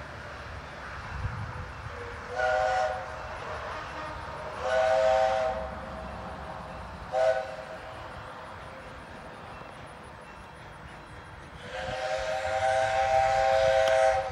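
Steam whistle of a 1928 coal-burning 0-4-0 tank locomotive blowing for a grade crossing: four blasts, the third very short and the last the longest and loudest, each a chord of several steady notes.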